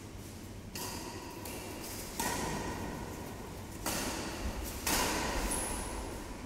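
Badminton racket strokes on a shuttlecock during a rally: four sharp hits, roughly a second or so apart, each ringing on in the echo of a large hall.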